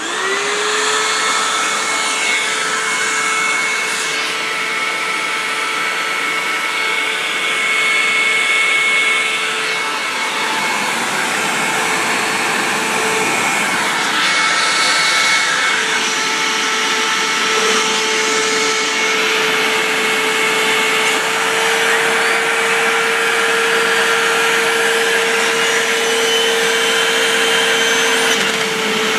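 Hoover WindTunnel upright vacuum cleaner switched on, its motor spinning up with a short rising whine. It then runs steadily with a loud hum and whine whose pitch and level shift slightly as it works.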